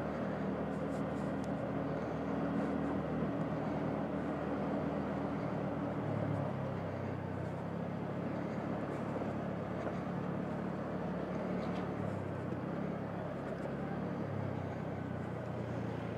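Two-wheeler's engine running while riding along at about 30–40 km/h, its pitch shifting a few times with the throttle, under a steady rush of wind and road noise.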